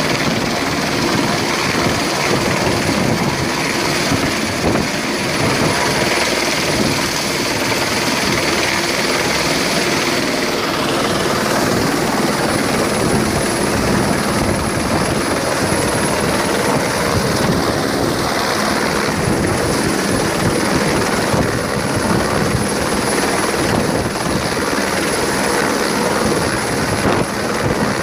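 Helicopter hovering close by, its main rotor giving a steady, rapid chop under the continuous whine and rush of the turbine engine.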